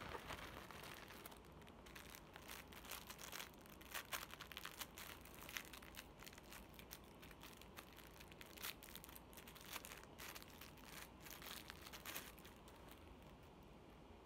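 Thin plastic packaging crinkled and torn by hand: an irregular run of crackles and rustles that thins out near the end.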